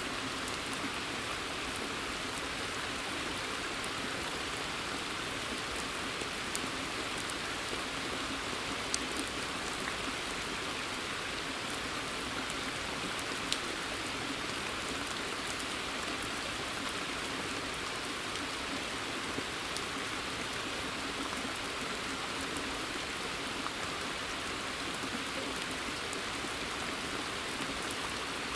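Steady rain falling on a pond and the woodland around it, a dense even patter with a few louder single drops standing out.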